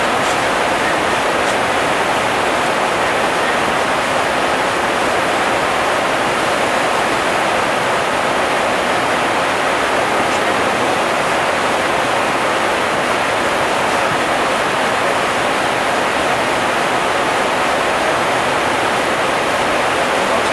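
Steady rushing air noise on the flight deck of a Boeing 747-400ERF in cruise at about 39,000 ft, an even hiss that does not change.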